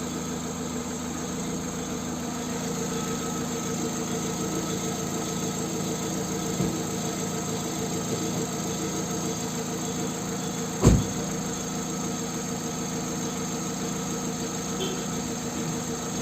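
Car engine running in first gear, spinning the jacked-up front wheel hub and brake disc at a steady speed: an even, unchanging run with several steady tones. A single loud thump about eleven seconds in, and a softer knock a few seconds earlier.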